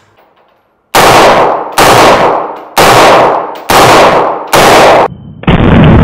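Five shots from a 5.56×45mm AR-15-style rifle, fired about a second apart, each one echoing through an indoor range. Near the end a loud continuous rushing noise begins.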